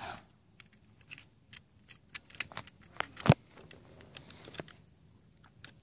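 Irregular small clicks and taps, with one louder, deeper knock about three seconds in. No gunshot.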